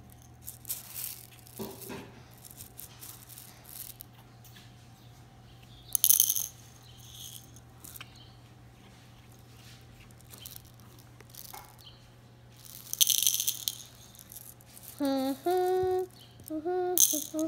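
Small plastic beads rattling in a few short bursts as they are scooped from a glass jar and dropped into a plastic measuring cup.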